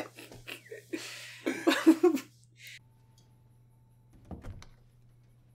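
A man coughing a few times after laughing, with a soft knock near the end.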